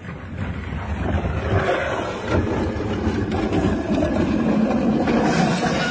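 Hard wheels rolling and scraping down an asphalt slope, a steady rough rumble that swells in the first second.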